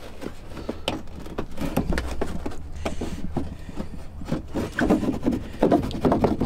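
Irregular scraping, creaking and clicking of a car's plastic rear bumper cover being pulled and worked at by gloved hands, getting denser and louder near the end.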